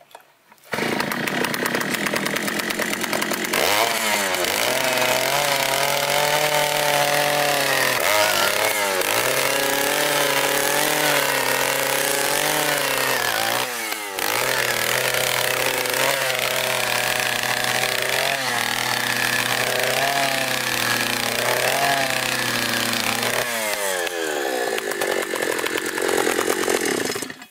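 Takyo TK-2PS earth auger's 54 cc two-stroke petrol engine running from about a second in, revving up as the 100 mm auger bit bores into soil. Its speed dips briefly under load a few times. Near the end it drops back to a lower idle and then cuts off.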